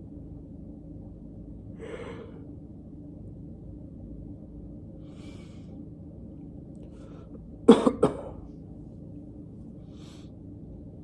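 A man coughing, two quick coughs in a row about eight seconds in, over a steady low room hum, with a fainter breath about two seconds in.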